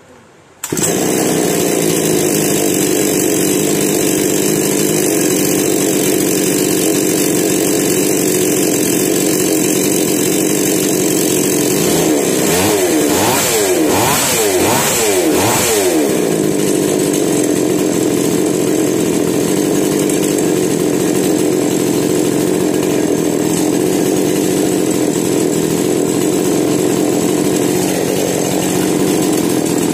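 Two-stroke petrol chainsaw engine (58 cc Himax 400) starting on the first pull less than a second in, then running steadily. About halfway through it is revved up and down several times before settling back to a steady idle. The machine now runs properly with its newly fitted carburetor and spark plug, after failing to start before.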